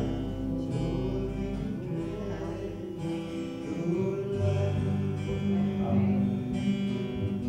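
Solo acoustic guitar playing, its chords ringing, with a change of chord about halfway through.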